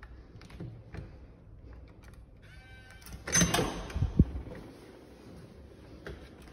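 Handling noises: scattered light clicks and a brief squeak, then a second-long burst of rustling that ends in a sharp thump.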